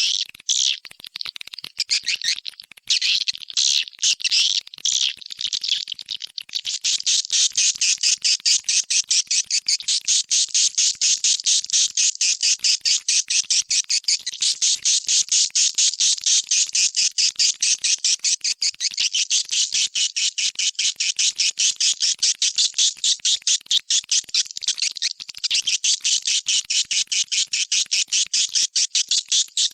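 Swiftlet lure call track: edible-nest swiftlets twittering in sharp, high chirps. The chirps come in uneven groups at first, then from about six seconds in become a fast, even run of many chirps a second. It is a roosting and calling sound played to draw swiftlets into a nest house.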